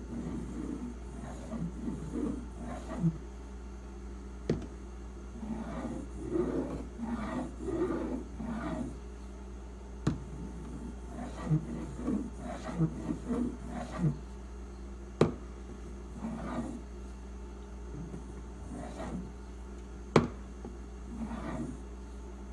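A stainless steak knife's edge stroked back and forth on a sharpening stone, held at a fixed angle in a clamp guide: a run of short, uneven rasping strokes, the last light clean-up passes on the edge. A few sharp clicks come between the strokes, about every five seconds.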